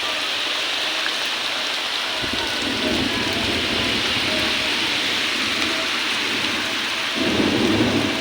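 Heavy monsoon rain pouring steadily, a dense hiss of drops on surfaces. A deeper rushing swell rises about two seconds in and again near the end.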